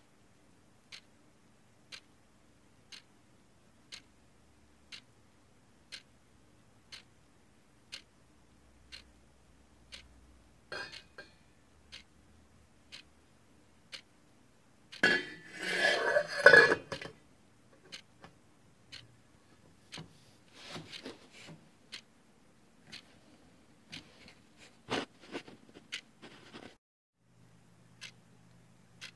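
A clock ticking steadily once a second, with a loud burst of clattering kitchenware about halfway through and lighter knocks and clinks later on.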